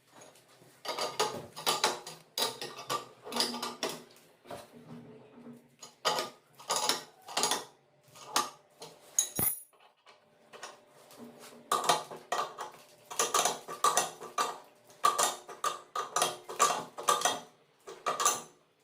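Metal tools and fittings clinking and rattling as they are handled, in quick irregular clusters, with one sharp click about nine seconds in.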